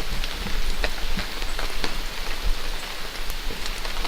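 Steady rain falling, an even hiss with many scattered drops tapping close by.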